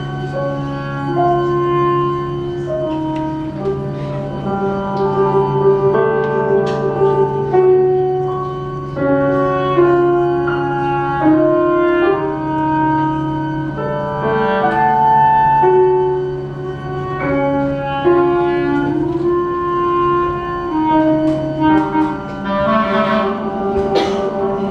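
Live chamber quartet of violin, cello, clarinet and piano playing contemporary classical music: sustained clarinet and string lines shifting from note to note over a low note held throughout, with piano notes struck in between.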